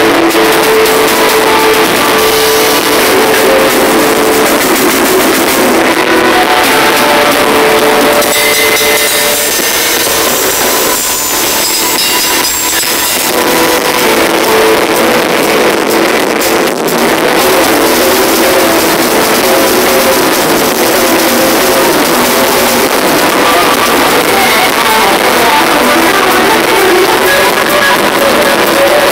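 A live band playing rock music, with drums and guitar, recorded very loud and steady throughout.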